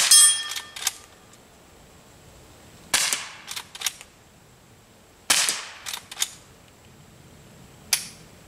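Four fairly quiet .22 rifle shots with CCI CB short pest-control rounds, fired from a Henry H001 rifle about every two and a half seconds; each shot is followed by two short clicks. The first shot hits a steel gong target, which rings briefly.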